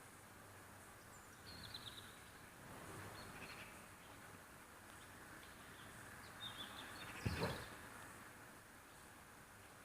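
Faint outdoor background noise with a few short bird chirps, and a single thump about seven seconds in.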